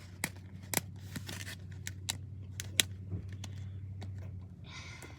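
Toy packaging being handled as someone tries to open it: scattered light clicks and crinkles, over a steady low hum.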